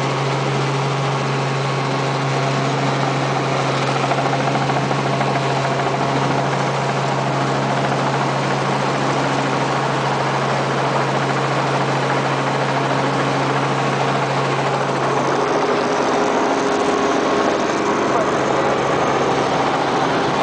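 Helicopter heard from inside the cabin: a steady engine and rotor drone with a strong low hum over a rush of noise, its tone shifting slightly about fifteen seconds in.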